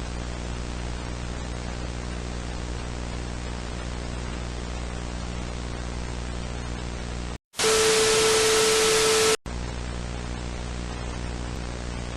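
Steady hiss of static over a low hum. About seven and a half seconds in, it cuts out briefly, then a much louder blast of harsh static with a steady tone plays for about two seconds before the quieter static and hum return.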